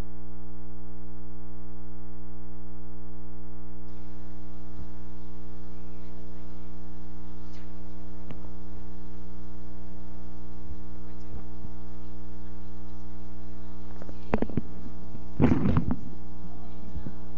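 Steady electrical mains hum with a stack of overtones. A few short knocks come about 14 seconds in, then a louder brief clatter of knocks a second later.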